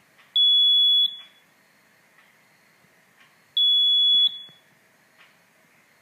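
Electronic buzzer of an Arduino light-sensor (LDR) burglar alarm beeping twice, two steady high-pitched beeps of under a second each, about three seconds apart. The alarm is triggered by a shadow falling on the light-dependent resistor.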